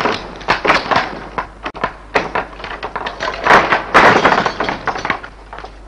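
A rapid, irregular run of loud knocks and crashes from a door being barged and a scuffle beside it, the heaviest crashes about three and a half to four seconds in, dying away near the end.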